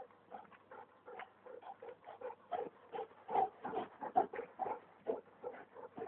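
Rapid panting breaths close to the microphone, a few short puffs each second, uneven in strength.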